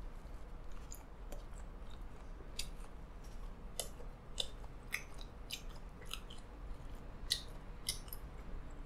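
A person chewing pizza close to the microphone: faint, irregular wet clicks and smacks of the mouth.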